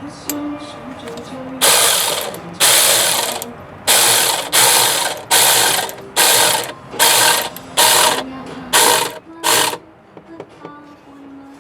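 Hand ratchet wrench working a fastener in about eleven quick strokes, each a short burst of ratcheting clicks, the strokes growing shorter toward the end.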